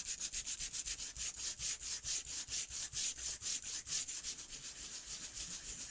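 Coarse sanding disc on a hand-held blending-tool handle rubbed quickly back and forth over embossed white-core cardstock: a dry, high scratching that pulses about six or seven strokes a second, sanding the colour off the raised pattern to make it two-tone.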